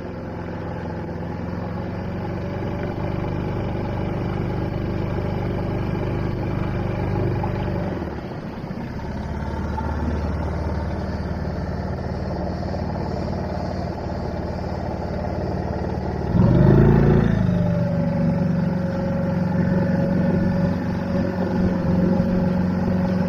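Dinghy's small outboard motor running steadily at low speed. Its note shifts about eight seconds in, and it speeds up briefly and louder around sixteen seconds before settling into steady running again.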